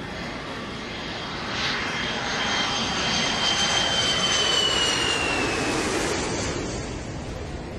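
A jet airplane passing overhead: a rushing noise that swells about a second and a half in, with a high whine that slowly falls in pitch as it goes by, then fades.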